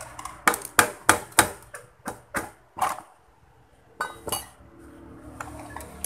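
About ten sharp knocks, spaced about a third of a second apart and stopping after about four and a half seconds: a stand-fan motor being tapped with a tool to free a rotor shaft that the repairer thinks is stuck. A low hum runs underneath.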